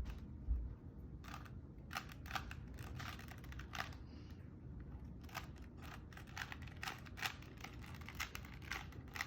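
Rubik's Cube layers being twisted by hand: a quick, irregular run of light plastic clicks, with a couple of dull bumps from handling in the first second.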